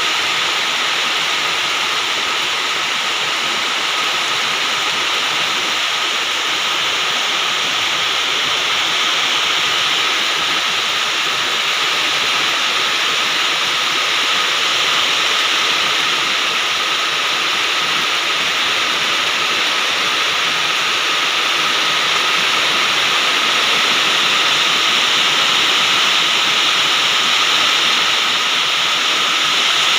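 Heavy downpour of rain: a loud, steady, dense hiss that holds level throughout.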